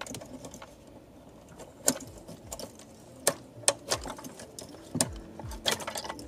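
Plastic wiring-harness connectors being unclipped and pulled from the back of the 2008 Lexus LS 460's factory stereo and display unit: irregular sharp clicks and plastic rattles, several of them in the second half.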